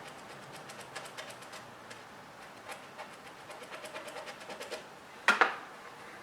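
A run of light, quick clicks and taps from a small hand tool working at the phone's ear speaker grill, then one much louder clack a little after five seconds in.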